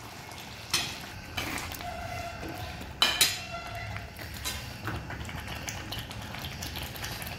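Metal ladle and utensils clinking and scraping against a metal kadhai as boiled peas go into the cooked masala gravy: a few sharp knocks, the loudest pair about three seconds in, over a faint steady simmer.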